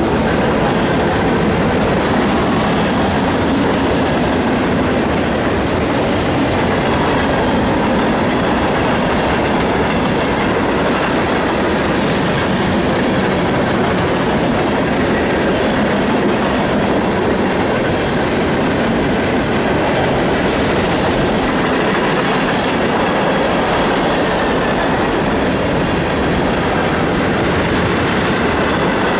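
Freight cars of a long mixed freight train rolling past close by: a steady, loud rumble and clatter of steel wheels on the rails and over the rail joints.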